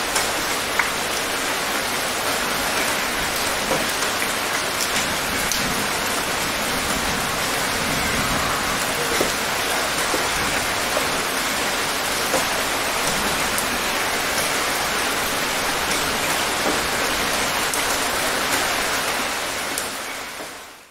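Light rain falling steadily: a dense, even hiss with scattered single drops ticking through it. It fades out near the end.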